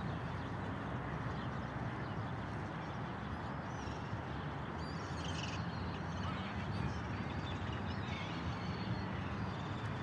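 Steady outdoor background noise with a low hum, and a few faint bird calls about halfway through and again a few seconds later.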